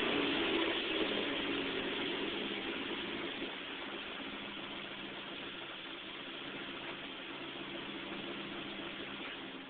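Chevrolet Cobalt SS's supercharged 2.0-litre four-cylinder engine idling steadily, gradually getting a little quieter.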